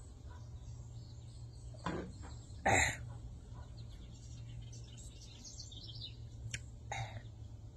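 A person eating fufu by hand and drinking from a mug, with small mouth and handling noises and one loud, short noise about three seconds in, while small birds chirp in the background over a steady low hum.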